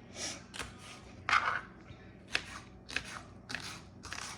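Knife slicing through a small sweet pepper onto a cutting board, a cut about every half second, each a short crisp strike.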